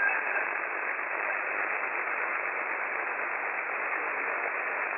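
Steady hiss of band noise from an Icom IC-7610 receiver in SSB mode on the 6 m band, with no station readable.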